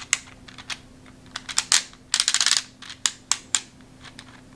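Plastic discs of a Brainwright TwinSpin rotating disc puzzle being twisted by hand, giving scattered sharp clicks and short runs of rapid clicking.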